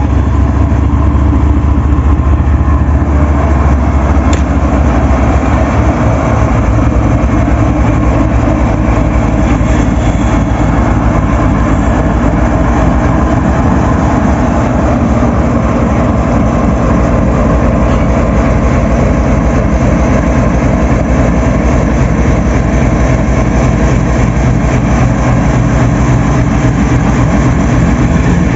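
Diesel engine of a Pakistan Railways GEU-40 diesel-electric locomotive idling. It is a loud, steady low drone with a deep rumble.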